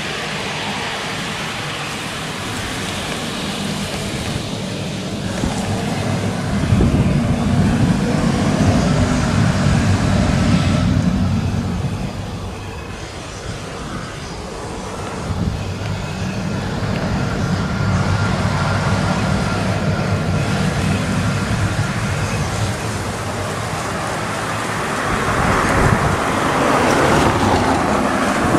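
Twin turbofan engines of a taxiing Embraer 190 airliner running at low power: a steady rumble that swells about a quarter of the way in and again near the end, with a faint steady whine in the middle.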